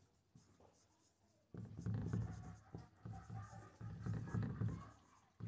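Marker writing on a whiteboard: a quiet first second and a half, then a run of pen strokes on the board until shortly before the end.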